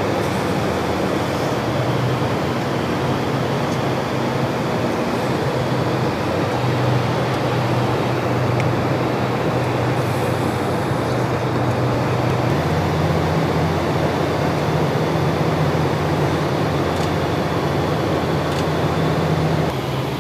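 Steady in-flight drone of aircraft engines and rushing air, with a low hum that shifts in pitch about twelve seconds in.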